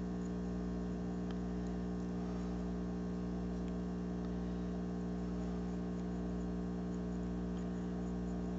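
Steady electrical mains hum with a buzzy stack of overtones and faint hiss, unchanging throughout; the quiet brushwork on the plastic canoe is not heard over it.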